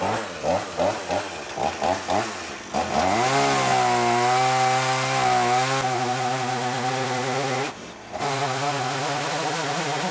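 Chainsaw engine working in the slots of a dead pine log. It runs in uneven pulses at first, then revs up about three seconds in and holds at high revs, with a brief drop in revs near the end.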